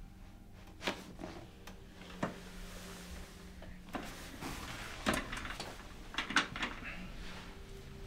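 Several short clicks and knocks at irregular intervals while hands work on a person's neck on a padded treatment table. The two loudest come a little past the middle.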